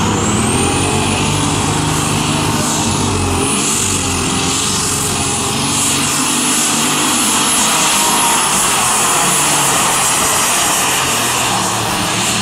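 Turbocharged pulling tractor at full throttle dragging a weight-transfer sled: a loud, steady engine with a high turbo whine that climbs in the first second and then holds.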